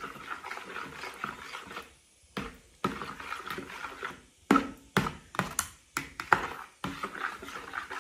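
A spoon stirring baking soda into kefir in a bowl, scraping and mixing, with a run of irregular sharp clinks against the bowl from a few seconds in.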